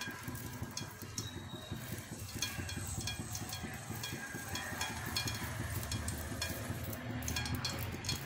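A little oil heating in a non-stick wok, sizzling with scattered small crackles and pops.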